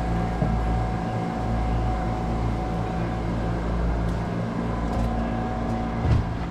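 Boat engine running steadily: a low drone with a faint, even tone above it.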